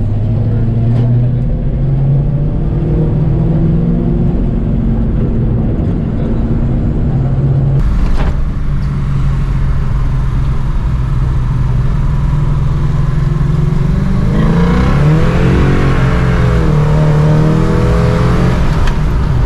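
Holden 308 V8 engine running while the car drives, heard from inside the cabin. The valvetrain runs on freshly fitted hydraulic roller lifters that the owner calls a lot quieter than the noisy flat-tappet setup. About three-quarters through, the engine note rises and swings up and down with the revs.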